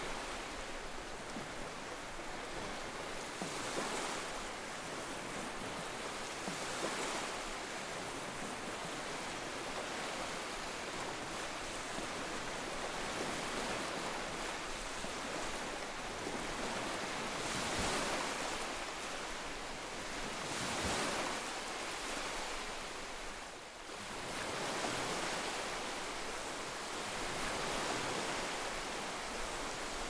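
Ocean waves washing over rocks: a steady rush of surf that swells louder now and then as a wave breaks.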